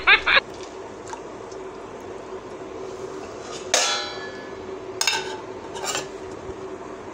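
Stainless steel plate and dishes knocking together: one ringing metallic clang about halfway through, then two lighter clinks about a second apart, over a faint steady hum.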